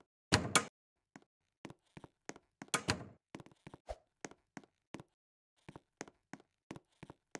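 Irregular light taps and knocks, a few a second, with two louder double thuds, one near the start and one about three seconds in.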